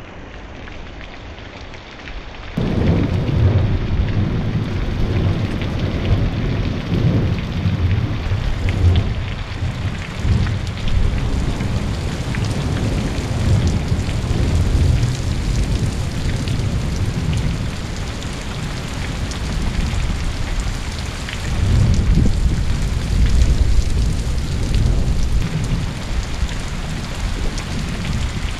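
Heavy rain falling steadily through a thunderstorm, with rolling thunder: a long low rumble from about three seconds in that dies away after several seconds, and another in the last third.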